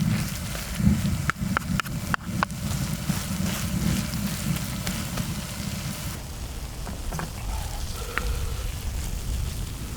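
Food sizzling on a cast-iron cauldron lid, with a few sharp utensil clicks about a second and a half to two and a half seconds in. A low rumble sits under it, heaviest in the first half.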